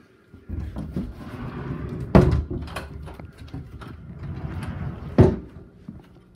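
Rustling and rubbing close to the microphone with two sharp bangs about three seconds apart, typical of closet doors being pushed open and shut during a search.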